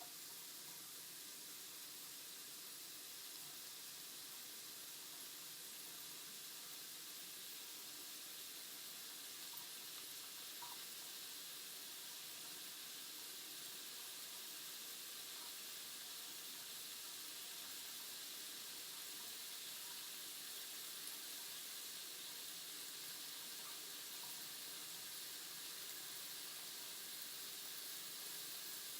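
Ground beef sizzling in a frying pan: a faint, steady hiss that grows slightly louder.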